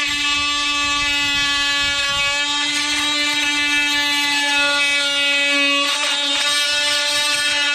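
DeWalt DCS356 brushless oscillating multi-tool running with a steady high-pitched buzz as its blade cuts through PVC pipe. A rougher rasp joins at times, and about six seconds in the pitch sags briefly as the blade bites into the plastic.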